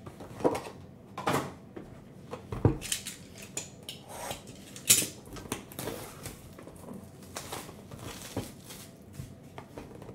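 Plastic shrink-wrap crinkling and tearing as it is stripped off a sealed cardboard box of trading cards, with the box knocking and rubbing under the hands. Irregular crackles and a few sharp clicks, the loudest about three and five seconds in.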